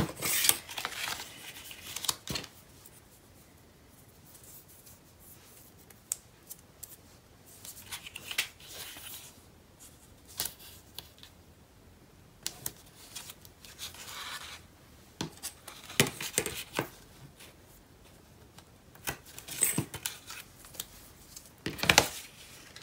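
Scissors cutting card stock and paper being handled, in short bursts every few seconds with quiet gaps between.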